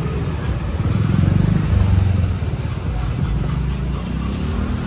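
A motor scooter riding past close by, its engine loudest about a second or two in and then fading, over the rumble of street traffic.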